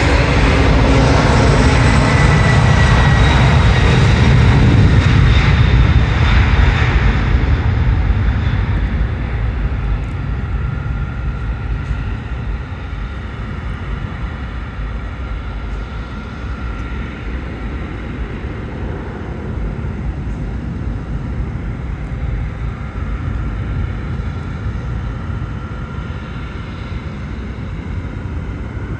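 Boeing 767-300's twin jet engines at takeoff power: a loud roar that eases after about eight seconds into a softer, steady roar as the jet lifts off and climbs away.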